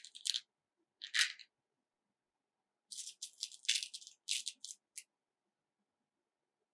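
Small plastic beads clicking and rattling in a clear plastic compartment box as fingers and a beading needle pick through them: a short rattle at the start, another about a second in, then a busier run of clicks from about three to five seconds in.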